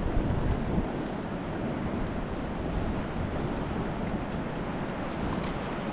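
Steady wind rumble on the microphone over sea water washing around a kayak.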